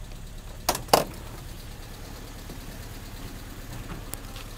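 Car engine idling with a steady low hum. About a second in come two sharp clacks close together, as a car door is opened.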